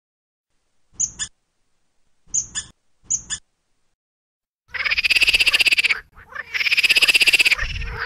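Squirrel calling: three short double chirps about a second apart, then two long, rapid chattering trills, each more than a second long, with a short break between them.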